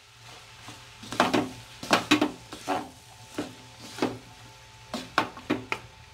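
Wooden spatulas scraping and knocking against a wok as fried rice is tossed and stirred, in irregular strokes about two a second.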